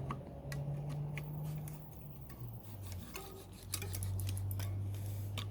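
Light metallic clicks and ticks of bicycle brake parts being handled and slid into place, irregular and scattered throughout, over a low steady hum.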